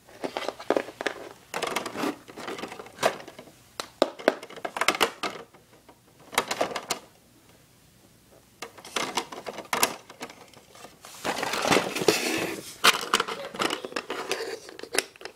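Small plastic Littlest Pet Shop figures tapping and clattering on a hardwood floor and against a plastic toy playset, with hand-handling rustle; the clicks come in clusters, with a quiet stretch around seven to eight seconds in.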